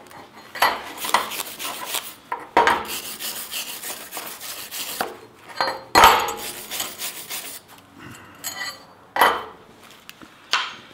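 Hand wire brush with steel bristles scrubbing a spray-arc MIG weld bead on a steel angle-iron bracket in scratchy strokes. Sharp metallic clanks come in between, as the steel bracket and brush knock on the steel welding table, one of them near the end.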